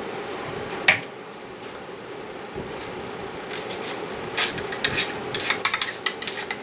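Cleaning rod and patch rubbing through the bore of a Kel-Tec Sub2000 carbine barrel, in a run of quick, irregular scraping strokes from about four seconds in. A single sharp click comes about a second in.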